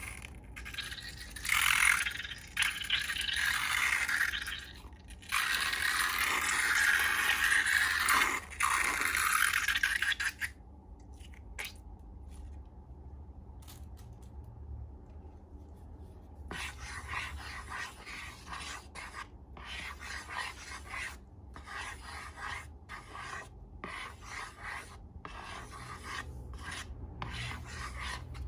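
Scraping and rubbing noises, loud and continuous for about the first ten seconds. After a quieter stretch they come back as a run of short strokes with brief gaps between them.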